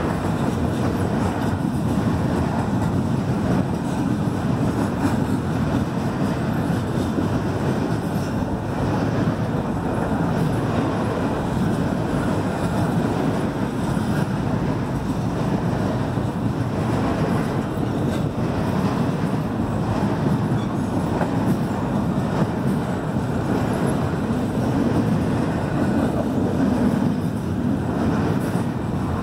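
CN double-stack container train passing at speed, its well cars rolling over the rails with a steady rumble of wheels.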